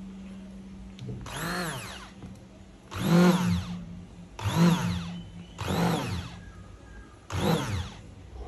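Braun hand blender motor switched on in five short pulses, each spinning up and winding down again, with the repaired blender now running.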